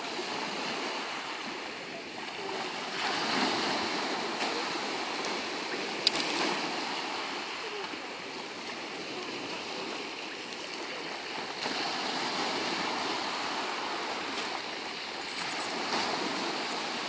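Small waves washing in over a shingle beach, with water splashing as two Alaskan Malamutes wade and play in the shallows, most splashing near the end. A single sharp click about six seconds in.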